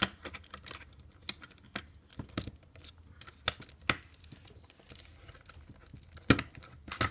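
Irregular sharp clicks and light knocks of plastic Lego bricks being handled and pressed together, about a dozen in all, with a faint rustle between them; the loudest click comes near the end.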